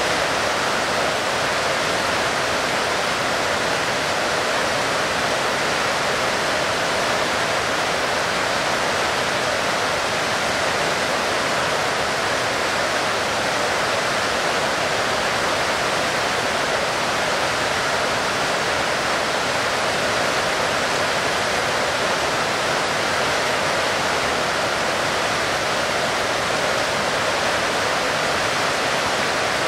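Heavy rain falling steadily: a dense, even wash of rain noise that does not change in level.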